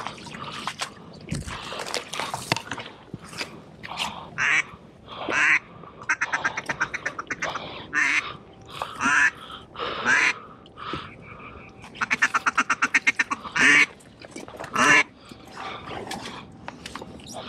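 Duck quacking: separate quacks plus two runs of rapid chatter, a short run about six seconds in and a longer, louder run about twelve seconds in.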